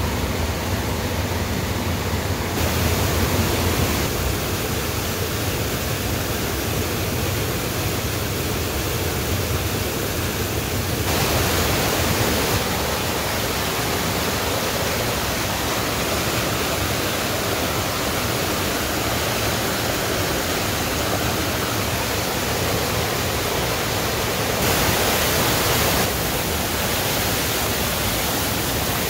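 Steady rush of water from waterfalls and cascades on a mountain creek. The sound changes abruptly in level and brightness a few times as the view moves from one falls to another.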